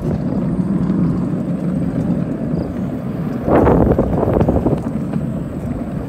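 Steady rumble of wheels rolling on asphalt, with wind buffeting the microphone. It swells louder for about a second midway.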